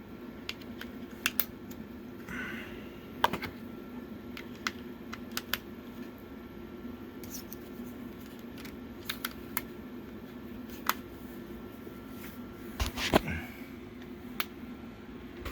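Irregular small plastic clicks and taps as AAA batteries are swapped into a remote control's battery compartment, the sharpest click about 13 seconds in, over a faint steady hum.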